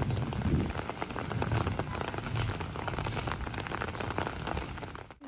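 Steady rain, with dense raindrops pattering on an umbrella overhead and a low rumble underneath. The sound cuts off abruptly just before the end.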